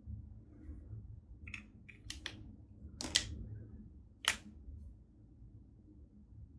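A few sharp plastic clicks from handling a felt-tip marker and its cap, the two loudest about three and four seconds in, over a low steady hum.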